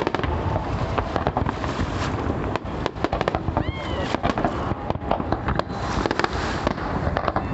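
Fireworks going off in quick succession: a dense, continuous run of bangs and crackles, with a brief high wavering tone about three and a half seconds in.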